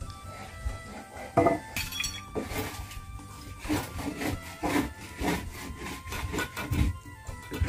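Wooden planks scraping and knocking as they are shifted into place on the dirt floor, in irregular strokes starting about a second and a half in, over background music.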